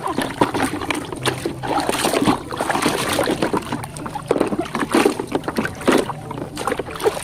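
Water splashing and sloshing as a muddy toy ladder truck is washed by hand, with irregular small splashes and knocks throughout.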